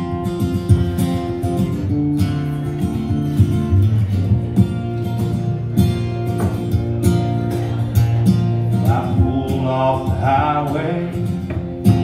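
Acoustic guitar strummed and picked in a steady country rhythm, playing a song's instrumental intro.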